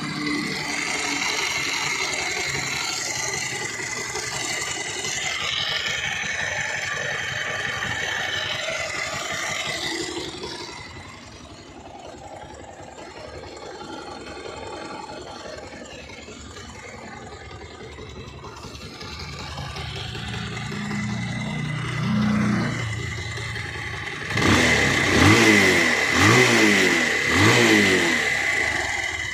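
Bajaj Pulsar 220F's single-cylinder engine running with a rattling noise, then revved up and down several times near the end. The owner takes the noise for a bad timing chain.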